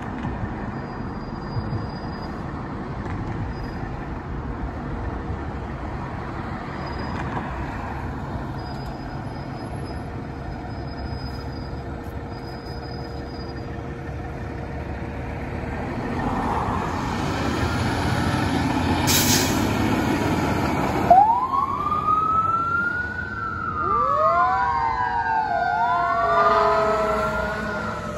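A fire engine's diesel engine runs steadily, then grows louder as the truck pulls out, with a brief sharp hiss about two-thirds of the way in. Its siren then starts up, wailing in loud, overlapping rising and falling sweeps.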